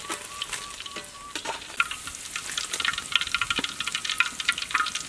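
Hot cooking oil sizzling and crackling in a wok as deep-fried fish is lifted out to drain, the crackle getting busier in the second half.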